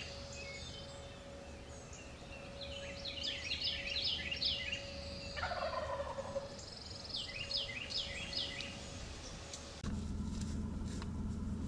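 Eastern wild turkey gobbler gobbling twice, each a quick rattling run of falling notes, the first about three seconds in and the second about seven seconds in. About ten seconds in, the background switches abruptly to a steady low hum.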